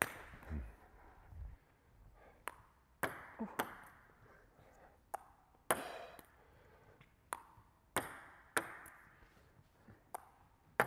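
Table tennis ball being hit with rubber paddles and bouncing on the table tennis table: about a dozen sharp, hollow ticks spaced irregularly, each with a short echo from the hall.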